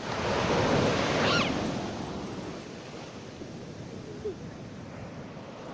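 Surf breaking on a sandy beach: a wave crashes and surges up the shore, loudest in the first second and a half, then settles into a softer steady wash.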